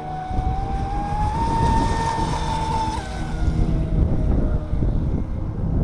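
Brushless electric RC speedboat running across the water: a high motor whine that rises in pitch over the first two seconds, drops about three seconds in and fades away. Wind rumbles on the microphone throughout.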